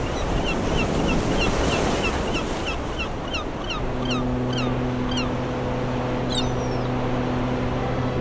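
Bird calls, a quick run of short falling chirps about three a second, over the wash of the sea. A low steady hum comes in about four seconds in.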